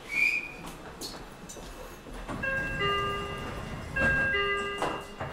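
Two-note door chime of a Meitetsu 9500 series commuter car standing at a station, sounding twice, a lower note then a higher one each time. A brief high squeak comes right at the start.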